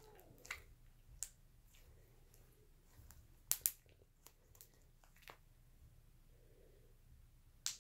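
Homemade slime being kneaded and stretched between the fingers, giving scattered sharp clicks and pops. The loudest is a quick pair about three and a half seconds in.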